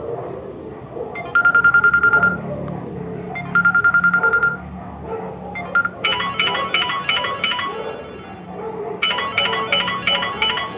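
Samsung Galaxy J3 (2016) ringtone playing through the phone's speaker. Two short trilling rings come first, then from about six seconds in a repeating pattern of quick electronic notes.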